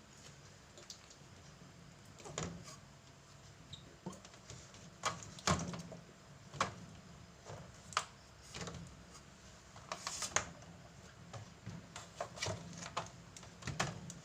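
Irregular light knocks and clatters as items are handled while cleaning a small refrigerator, a dozen or so separate strokes at uneven spacing.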